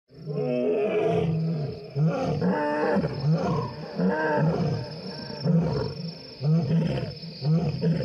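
A lion roaring: a bout of short, repeated grunting calls, about one or two a second.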